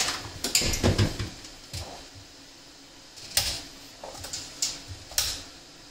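Handling keg fittings and tubing while connecting a beer line to a keg: a scattered series of short clicks and knocks, about seven, with quiet gaps between.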